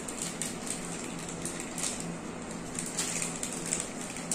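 Paper ice-cream cone wrappers crinkling and tearing as they are peeled off by hand, in quick irregular crackles, over a faint steady low hum.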